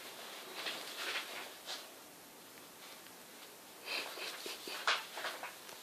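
Pen scratching quickly across paper, then sheets of paper rustling as they are handled, starting about four seconds in.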